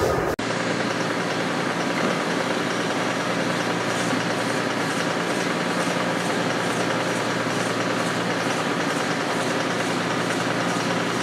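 Hydraulic hinge cycle-test rig running: a steady machine hum and hiss with a faint regular ticking about two or three times a second.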